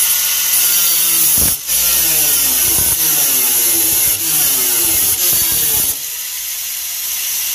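Corded angle grinder with a metal cut-off disc cutting through the van's sheet-metal floor: a loud grinding hiss over the motor's whine, which sags and rises in pitch with the load. The cut breaks off briefly about a second and a half in and eases to a lighter cut about six seconds in.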